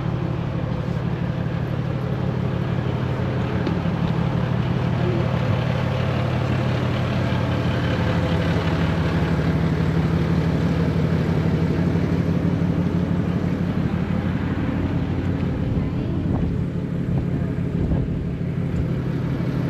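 Tour coach's diesel engine running steadily, a low droning hum that swells a little in the middle and eases off near the end.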